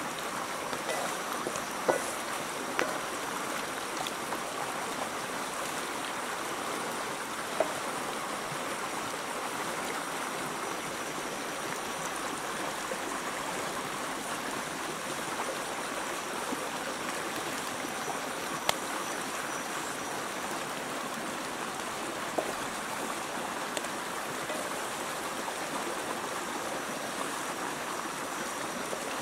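A small rocky river running steadily in a continuous rush of flowing water. A few short sharp clicks and taps stand out above it now and then.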